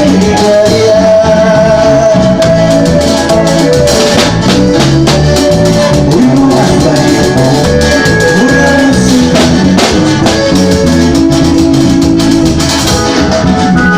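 Band playing Latin dance music: a steady beat on drums and shakers under held melodic notes, continuous.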